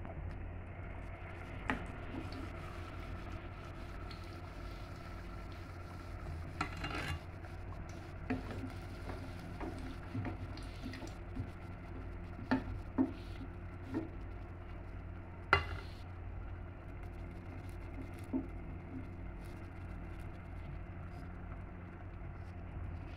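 A slotted steel spoon clinks against a steel pot now and then, about eight sharp knocks in all, as fried balushahi are lowered into sugar syrup. A steady low hum runs underneath.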